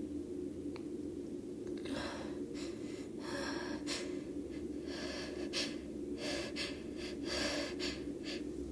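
A woman's sneeze build-up: a run of short, gasping in-breaths, about one or two a second, starting about two seconds in.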